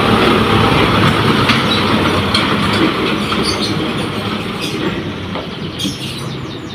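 A light cargo truck driving past, its engine and tyres loud at first, then fading steadily as it moves away. Faint bird chirps come in near the end.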